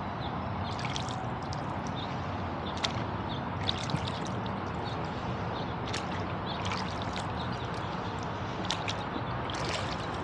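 Light, irregular water drips and small splashes around a rowing boat, over a steady low drone of road traffic from a nearby highway bridge.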